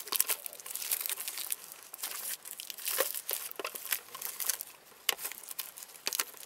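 Irregular rustling, scraping and crackling close to the microphone, from clothing, hands and the camera brushing against cave rock and grit on the move, with a few sharper clicks about three seconds in.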